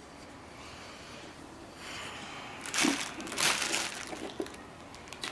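Rustling and scuffing of a cosplay suit and its hood or helmet being handled and pulled on, with a cluster of loud scuffs about three seconds in and a few small knocks near the end.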